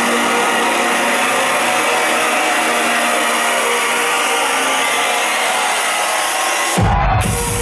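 Loud electronic dance music played over a venue sound system, in a build-up with the bass filtered out and a dense hiss of synth noise on top. Near the end the highs cut out for a moment and the full bass drops back in.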